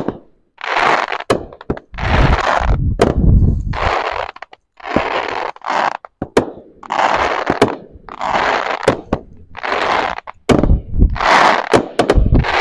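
A Brothers Fireworks crackle cake firing shot after shot, about one a second. Each shell bursts into a crackling flower whose dense crackle lasts under a second, with a sharp crack of a launch or break between bursts.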